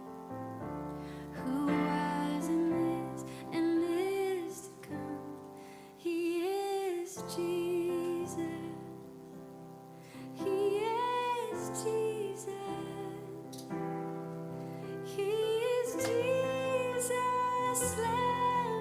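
A woman singing slow, long-held melodic phrases with vibrato over soft, sustained piano chords: a quiet worship song.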